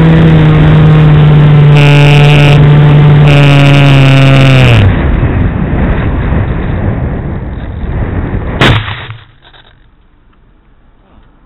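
Onboard sound of a Multiplex Easystar's electric pusher motor and propeller running steadily with heavy air rush. About five seconds in the motor winds down and stops, and the rushing air fades as the plane glides. About nine seconds in there is one sharp crash as it comes down into the reeds, then the sound drops away.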